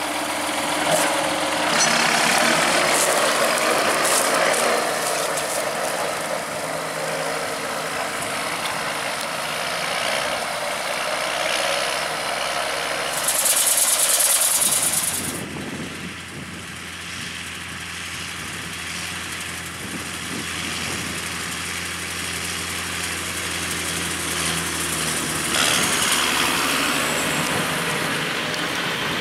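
John Deere 6830/6930 tractor's six-cylinder diesel running steadily while it drives with a mounted twin-disc fertiliser spreader working. It swells louder near the end as the tractor comes close. A brief loud hiss comes about halfway through.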